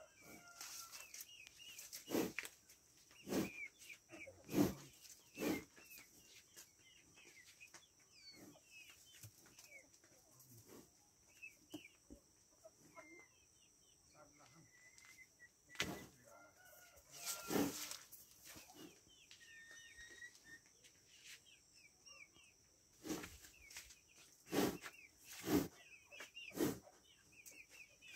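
Chickens clucking and small birds chirping over a steady high hiss, broken by loud short knocks or crunches that come in clusters near the start and near the end.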